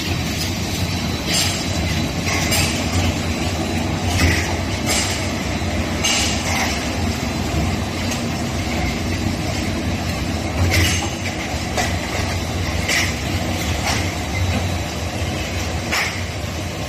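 Two-in-one roll forming machine for steel drywall profiles (60/27 and 27/28) running, with a steady low hum and irregular short metallic clanks and squeaks.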